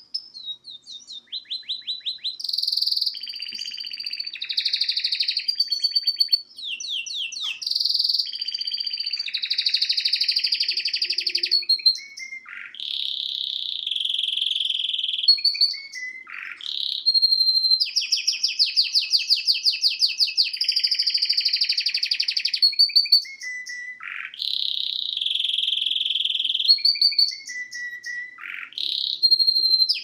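Domestic canary singing a long, near-continuous song of fast trills and buzzy rolls, broken by a few short pauses.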